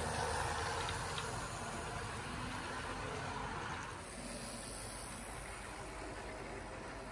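Model train running by: the locomotive's small electric motor whirring and its wheels rolling on the track. It is louder in the first half and drops to a quieter running noise after a cut about four seconds in.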